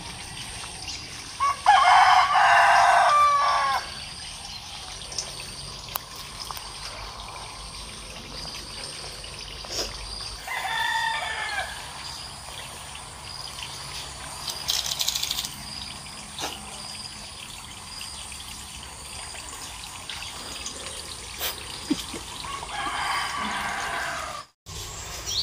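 A rooster crowing: one loud crow of about two seconds starting near the start, then quieter crows around eleven seconds in and again near the end.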